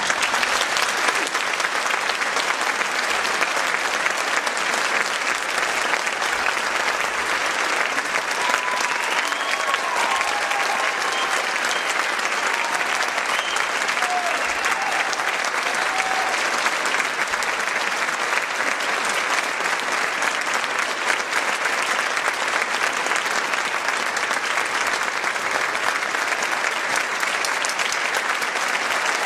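Audience applauding steadily and loudly, the applause breaking out just as the music ends.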